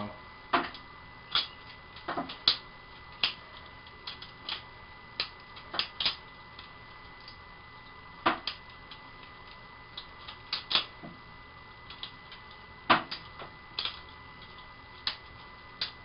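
A balisong (butterfly knife) being flipped: its handles and blade knock together in sharp, irregular clicks, roughly one or two a second, the loudest a few seconds before the end.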